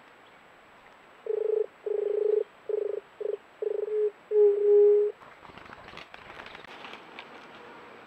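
White-tipped dove cooing: a run of low, hollow hoots, the last one drawn out. Faint rustling and ticking of leaf litter follows.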